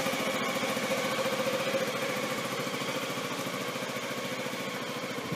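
2008 Suzuki Gemma 250 scooter's single-cylinder four-stroke engine idling steadily through its exhaust.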